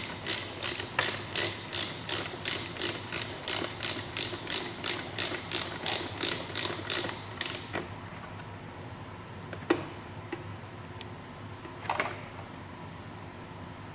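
Ratchet wrench on a long extension and 11 mm socket clicking in an even series, about three clicks a second, as it runs down the steering damper's center mounting bolt. The clicking stops about seven and a half seconds in, followed by two single light knocks.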